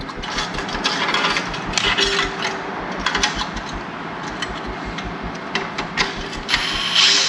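Metal clicking and scraping as a loosened motorcycle exhaust clamp is worked off the link pipe, with a louder clatter near the end.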